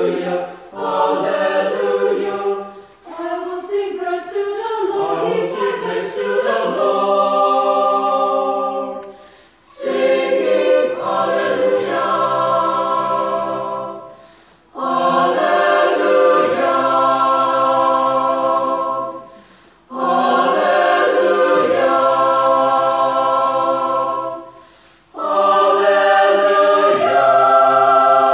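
Mixed church choir of men and women singing a sacred song unaccompanied in parts, in phrases of held chords a few seconds long, each followed by a short breath.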